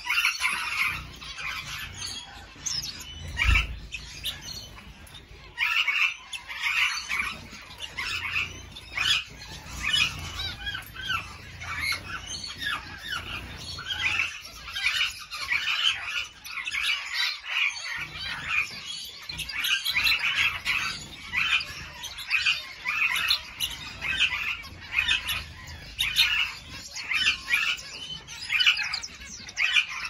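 A flock of canaries and finches chirping and calling, many short calls overlapping almost without pause. A single low bump comes about three and a half seconds in.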